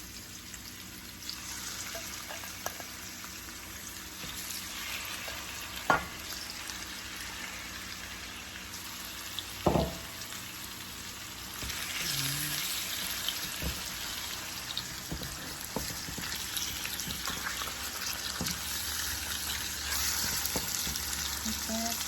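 Chicken breast frying in hot olive oil and garlic in a pan, a steady sizzle. There are two sharp knocks about six and ten seconds in, and the sizzle grows louder about halfway through.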